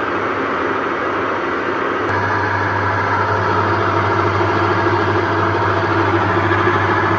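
Onida 6.2 kg top-load washing machine running with a loud, harsh mechanical noise; a steady low hum comes in about two seconds in. The noise is the sign of a failed gearbox, which the repairer finds jammed: the machine makes this noise on spin and will not turn on wash.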